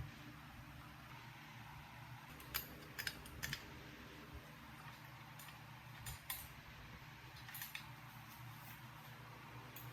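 Faint, sharp clicks and light taps, a few scattered and some in quick pairs, over a steady low hum.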